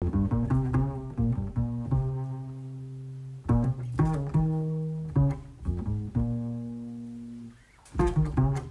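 Double bass played pizzicato on its own: short runs of quick plucked low notes, each phrase ending on a long note left to ring and fade, with a brief pause near the end.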